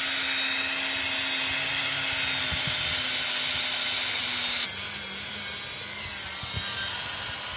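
A handheld electric abrasive cutter grinding through a bundle of steel rebar, a steady, loud grinding with a hum that drops slightly in pitch about two-thirds through.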